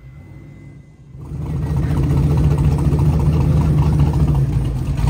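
A modern Chevrolet Camaro drag car's engine idling as it rolls up to the line. It comes in loud and steady about a second in, after a quieter start.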